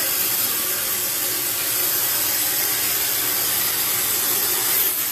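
A steady, even hiss with no distinct strokes or tones.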